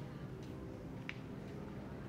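Outdoor background noise: a low steady rumble, with a brief high chirp about a second in.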